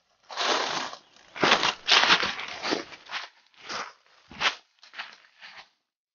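Dry fallen leaves crunching and crackling underfoot in a series of irregular bursts as people step and shift about on the leaf litter. The bursts are loudest about a second and a half in, then thin out and stop shortly before the end.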